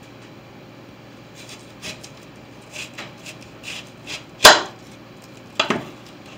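Kitchen knife slicing a red onion on a wooden counter: a few light cuts, then two sharp knocks of the blade hitting the wood in the second half.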